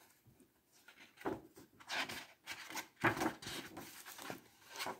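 Paper pages of a hardcover picture book being turned by hand: a string of short, irregular rustles and rubs, starting about a second in.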